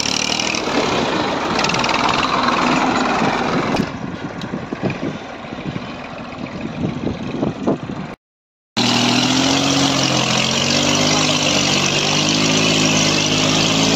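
Massey Ferguson 1035 DI tractor's three-cylinder diesel engine running under load as it drags a rear leveller blade through sand. The sound drops quieter with scattered knocks for a few seconds, cuts out briefly about eight seconds in, then comes back as a steady engine note.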